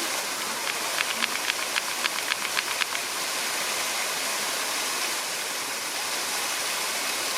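Steady rushing of falling water, like a waterfall. About a second in, a quick run of a dozen or so sharp clicks, about six a second, lasts for about two seconds.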